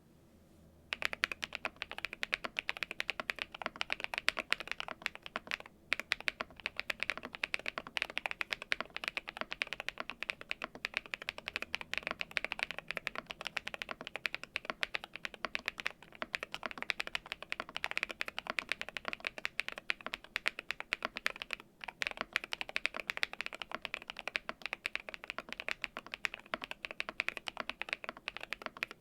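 Fast continuous typing on a GMK81 mechanical keyboard with lubed Akko Cream Yellow Pro linear switches, tape-modded and foam-filled, under cherry-profile keycaps. It starts about a second in, with two brief pauses along the way.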